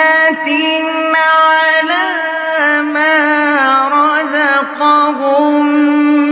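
A single voice chanting Quranic recitation in a melodic tajweed style, drawing out long sustained notes with ornaments that bend up and down in pitch. It breaks off briefly twice, once just after the start and once about two-thirds of the way through.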